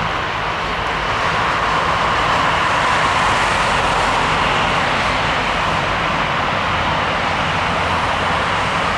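Jet engines of an Airbus A320 passing by, a steady rushing roar that swells to its loudest about three seconds in and then eases slightly.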